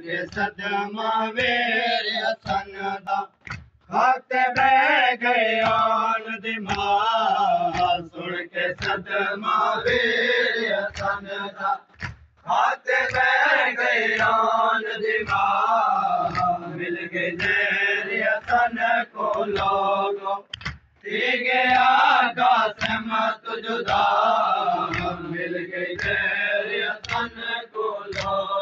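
A group of men chanting a noha, a mourning lament, in unison, with the regular thud of hands striking chests (matam) keeping a steady beat under the voices.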